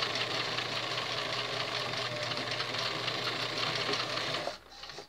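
Electric sewing machine stitching a seam at a steady speed. It stops abruptly about four and a half seconds in, followed by a single sharp click.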